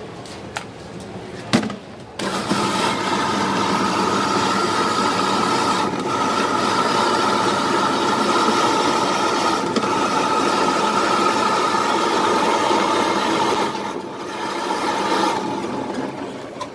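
Electric ice-shaving machine running and shaving a block of ice into a bowl: a steady motor whine over a grinding rasp. It starts about two seconds in, dips briefly near the end, then stops, after a few small clinks at the start.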